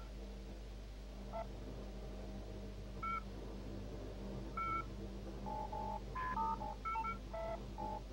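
Electronic keypad beeps from a handheld instrument, short tones of different pitches like telephone dialing: three single beeps about a second and a half apart, then a quick run of about ten beeps in the last few seconds, over a steady low hum.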